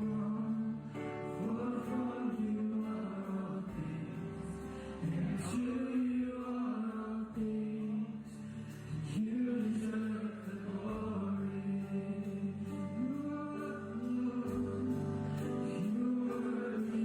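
Slow worship song: a band playing held chords under a singer's sustained, gliding melody.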